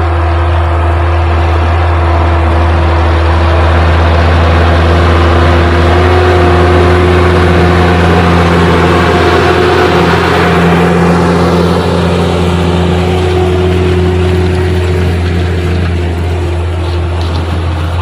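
Case IH Puma 140 tractor's six-cylinder diesel engine running steadily under load while pulling a disc harrow through the soil. It grows louder toward the middle as the tractor comes close, then eases off near the end.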